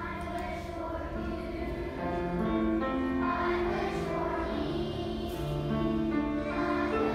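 Children's primary school choir singing together, growing louder about two seconds in.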